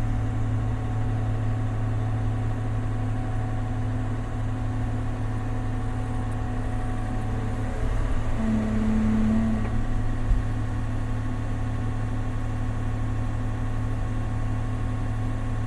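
Large excavator's diesel engine running steadily under work, with a short extra tone over it about eight seconds in and a single knock about ten seconds in.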